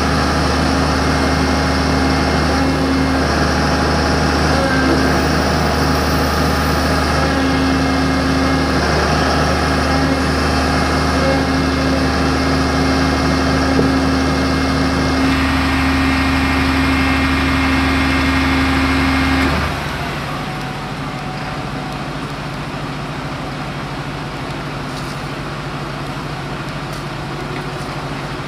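Fire engine's diesel engine idling with a steady drone. About two-thirds of the way through, the sound drops to a quieter, thinner drone as the deep hum falls away.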